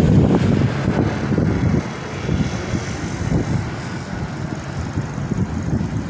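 City street traffic passing, with wind buffeting the microphone. It is louder for the first two seconds, then eases a little.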